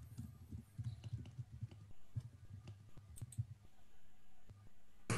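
Faint irregular clicks and low knocks over a steady low hum, with one sharp click near the end.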